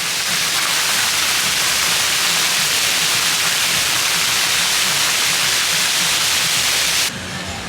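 Steady rush of falling and splashing water, cutting off abruptly about seven seconds in.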